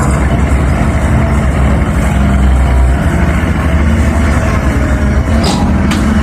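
Heavy diesel engine of a CAT 320 excavator running steadily, with two short knocks near the end.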